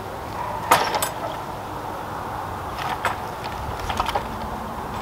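Wooden-framed wire-mesh gate rattling, its hardware clicking and knocking as a dog pushes and jumps against it: a few scattered sharp knocks, the loudest about a second in.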